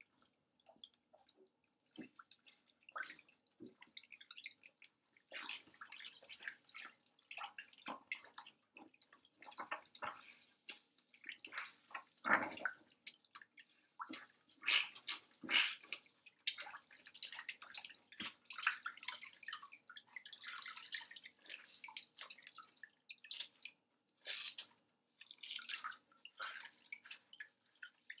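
Water sloshing and splashing in a sink as goalkeeper gloves are rubbed and squeezed by hand, in uneven swishes with drips.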